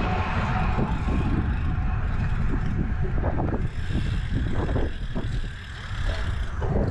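Wind buffeting the microphone of a GoPro action camera on a moving road bike, with the tyres rolling on asphalt. The rush eases for a moment as the bike slows down.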